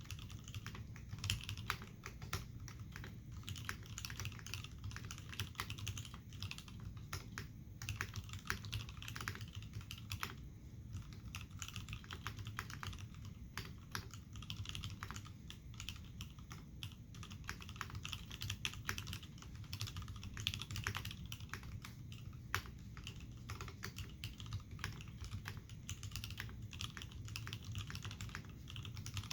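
Continuous typing on an Iron180 mechanical keyboard with lubed, filmed Hirose Cherry MX Clear tactile switches under original Cherry dye-sub keycaps, in a forged carbon-fibre plate and brass-bottomed case. Keystrokes click irregularly, several a second, without a break.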